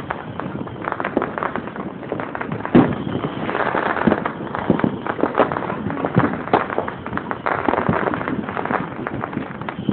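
Fireworks crackling and popping in a dense, irregular string like popcorn popping, with one louder bang about three seconds in.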